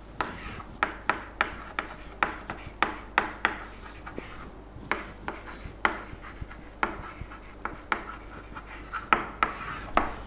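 Someone writing on a board: a string of irregular short, sharp taps with light scraping in between, about two a second.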